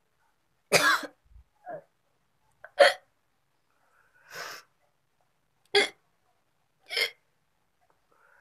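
A woman hiccuping: about six short, sharp hiccups one to three seconds apart, some much softer than others.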